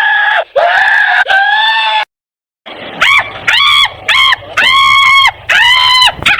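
Angry wordless screaming and yelling: three long, loud yells, a short silence, then five shorter shouts in quick succession.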